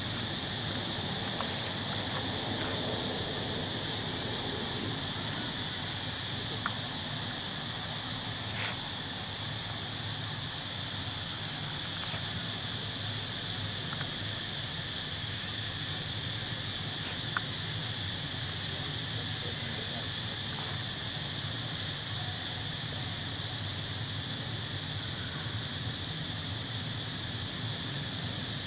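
Steady chorus of insects, an even high-pitched drone that does not change, with a few scattered faint clicks.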